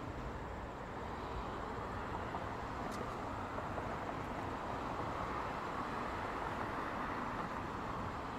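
Road traffic: cars and a pickup truck passing on a multi-lane road, a steady tyre-and-engine hiss that swells a little about halfway through.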